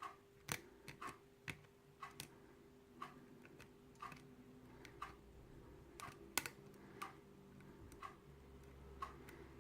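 Faint, irregular ticks and clicks of a hook pick working the pins of a kik lock cylinder under tension from a tension wrench, about one click a second.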